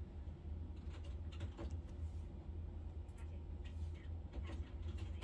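Quiet room background: a steady low hum with scattered light, irregular clicks and taps.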